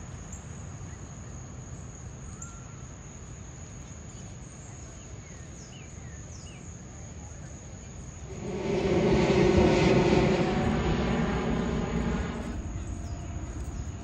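A vehicle passes close by, swelling up about two-thirds of the way through and fading out over the next few seconds. Underneath, a steady high insect drone and a few short bird chirps.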